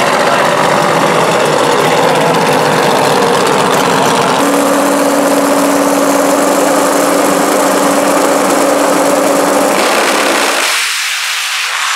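Turbocharged Pro Extreme drag car engine running loud and steady at high rpm on the starting line. Near the end the sound changes abruptly and its low end drops away.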